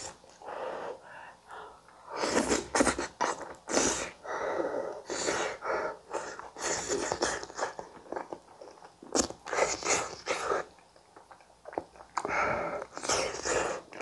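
Eating sounds: chewing and mouth noises while eating a gratin of boiled potato, tomato and onion, coming in irregular bursts with short pauses between.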